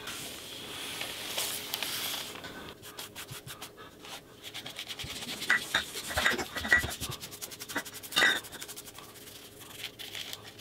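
Hands rubbing rice paper pressed over an inked fish to take a gyotaku print: a dry, scratchy rustling of fingers over paper in quick strokes, loudest a little past the middle.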